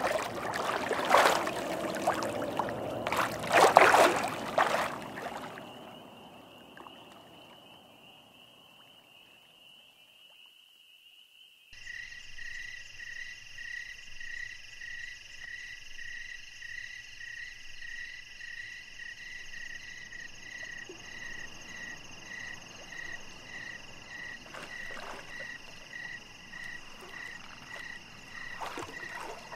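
Lake water splashing loudly as a person wades through it, over a thin steady high tone. About twelve seconds in the sound changes to a dusk chorus of frogs croaking, one call repeating about twice a second.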